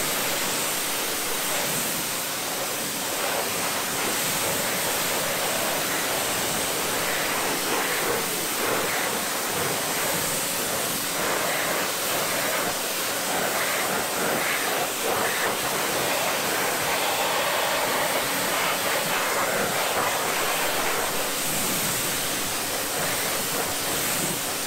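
Pressure washer jet rinsing a car wheel and tire: a steady hiss of high-pressure water spraying onto the rim, washing off the brake dust cleaner.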